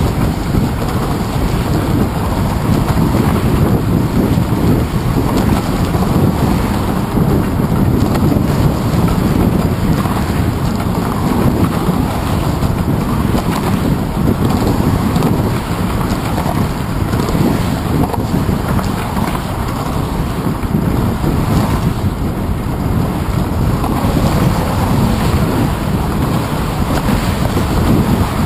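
Wind buffeting the microphone of a handlebar-mounted GoPro Hero 2 on a moving bicycle: a loud, steady, low rumble.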